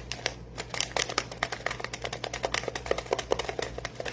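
Rapid, irregular small clicks and taps, several a second, over a steady low hum.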